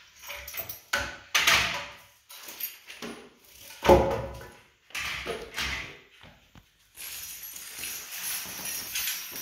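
Irregular knocks and short bursts of clatter, then a steady rushing hiss over the last two seconds or so.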